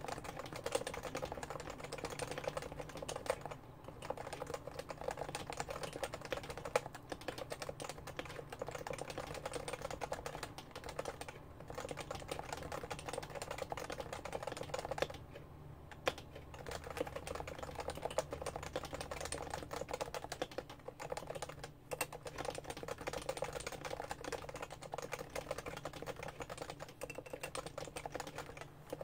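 Continuous fast typing on a Realforce R2 keyboard with Topre electro-capacitive switches: a dense stream of keystrokes broken by a few short pauses, the longest about fifteen seconds in.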